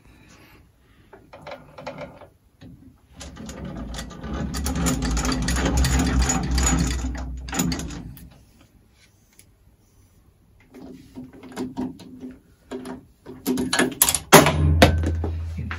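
Metal-working lathe running for several seconds with a low hum under a rushing mechanical noise, building up and then running down. Then scattered clicks and knocks as its lever and tool post are handled, and near the end the lathe starts again with a steady low hum and a few sharp clicks.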